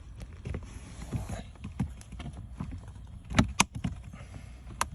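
A plastic interior trim panel being pulled loose by hand: scattered knocks and rattles, with two sharp snaps about three and a half seconds in as its clips let go.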